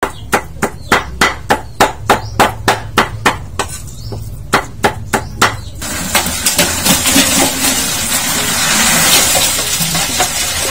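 A cleaver chopping on a cutting board, about three strokes a second with a short pause partway through. From about six seconds in, crabs are tipped from a plastic bucket into a large metal pot, a dense, steady clatter of shells on metal.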